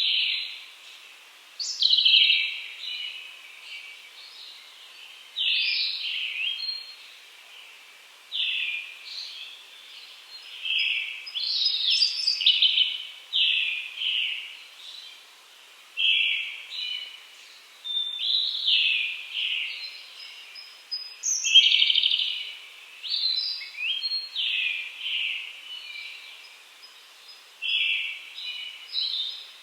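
Wild songbirds singing: loud phrases come every two to three seconds, often overlapping, and each rings on with a clear echo. Among the singers are birds of the kind the recording is made for, the brown-headed thrush and the Japanese robin.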